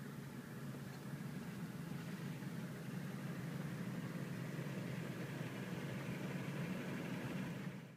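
1985 Pontiac Parisienne Safari wagon's engine idling steadily, heard from inside the cabin.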